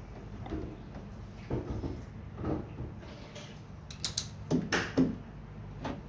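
A series of knocks and clatters, the loudest a cluster about four to five seconds in, over a steady low hum.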